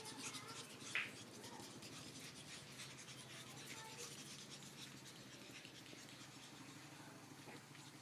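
Pug puppies' claws scratching and pattering on a concrete floor as they play, faint and scratchy. A brief, louder high-pitched sound comes about a second in.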